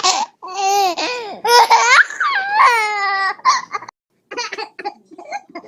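A person laughing loudly in long, high-pitched, wavering bursts, breaking into shorter, choppier bursts about three and a half seconds in.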